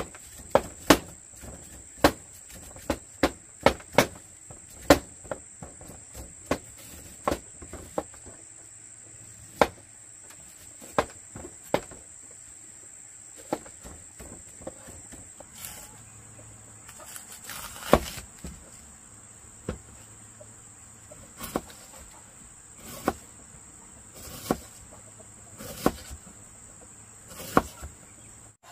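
Kitchen knives slicing raw bamboo shoots and knocking onto cutting boards: a string of sharp, irregular chops, closer together at the start. A steady high-pitched insect drone sounds underneath.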